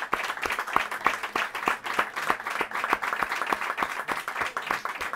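Audience applauding: many hand claps overlapping in a steady, irregular patter.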